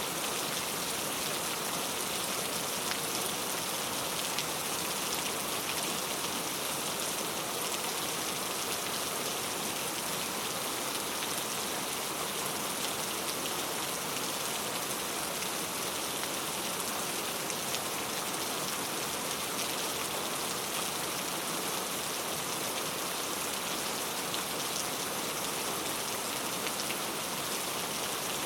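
Steady rain falling, a continuous hiss of drops on hard surfaces with fine patter and no change in strength.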